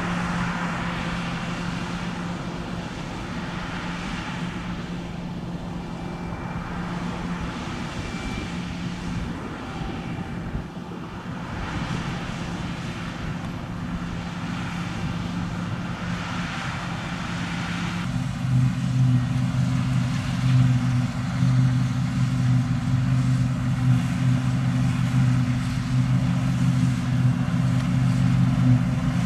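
Fendt 6275 L combine harvester's diesel engine running steadily, growing louder and deeper about eighteen seconds in.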